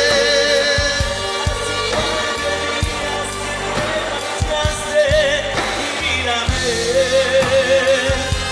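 Live regional Mexican band music: a held melody wavering with vibrato over a steady bass line and regular drum beats.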